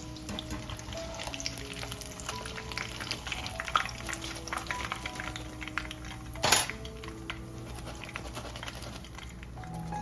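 Hot oil frying with fine crackling and spattering, over soft background music with slow held notes. A short, louder burst of noise about six and a half seconds in.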